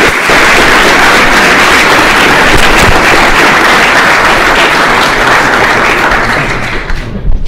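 Audience applauding steadily, fading away near the end.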